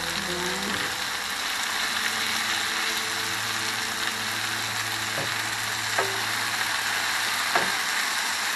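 Kangkong (water spinach) frying in oil in a nonstick frying pan and being turned with a wooden spoon: a steady sizzle, with a few light knocks of the spoon on the pan in the second half.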